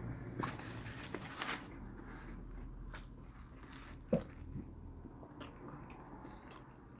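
Close-up chewing of a chicken torta sandwich: moist chewing with crunchy crackles in the first two seconds and one sharp mouth click about four seconds in.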